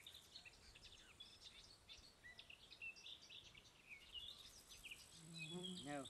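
Small birds chirping faintly and often, against near silence. A person's voice comes in briefly near the end.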